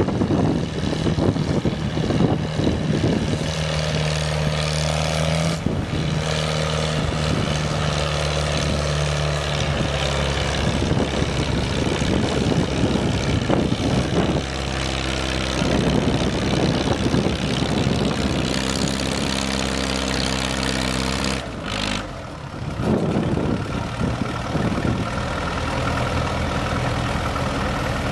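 Fiat 850 4×4 tractor's diesel engine running steadily as the tractor drives across soft soil, its note shifting in pitch a few times.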